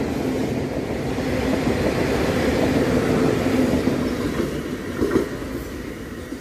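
South Western Railway Class 450 electric multiple unit running past along the platform: wheel and motor noise with a steady hum, fading as the train draws away. There is a single knock about five seconds in.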